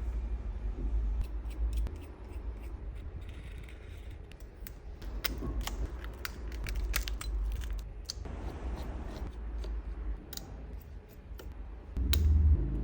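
Scattered light clicks and taps of small tools and phone parts being handled on a workbench, over a steady low hum. A louder low rumble comes near the end.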